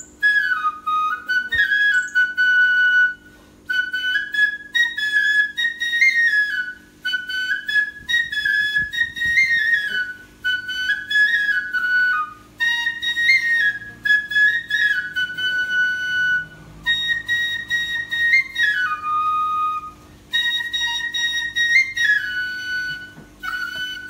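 Background music: a solo flute playing a slow melody in short phrases, over a faint steady low drone.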